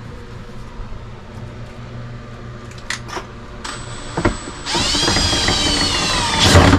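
Cordless drill-driver driving a screw into the composting toilet's base to fix it down: a few clicks and knocks, then the motor runs for about two seconds, its pitch sagging slightly before it stops.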